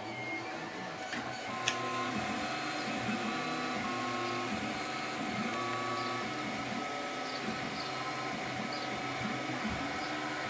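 Stepper motors of a Maximus 3D printer whirring as it prints: short steady tones that keep jumping to new pitches, with swooping rises and falls as the moves speed up and slow down. There is a sharp click about a second and a half in.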